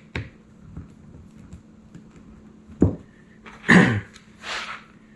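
Small sharp clicks of a hex driver and metal parts as set screws are driven into the skid tubes, with a louder short breathy rush about three-quarters through and a softer one just after.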